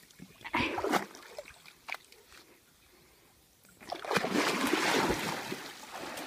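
A large dog bounding and lunging through shallow river water, splashing heavily: a burst of splashing in the first second, a quieter stretch, then a longer run of heavy splashing from about four seconds in.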